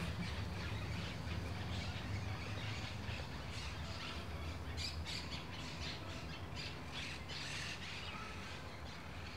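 Outdoor ambience: birds calling on and off over a steady low hum.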